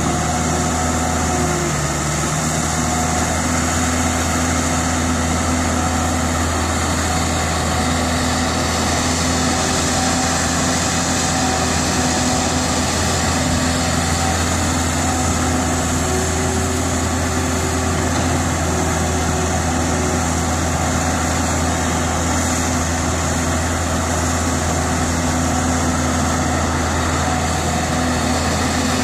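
Caterpillar E120B excavator's diesel engine running steadily as the machine works, with a few steady tones above it that shift in pitch now and then as the boom and swing move.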